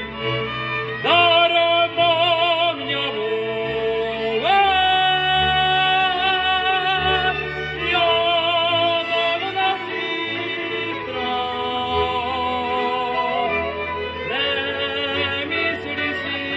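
A man singing a folk song with instrumental accompaniment, holding long notes with a strong vibrato; several notes slide up from below, about a second in, four and a half seconds in and near the end.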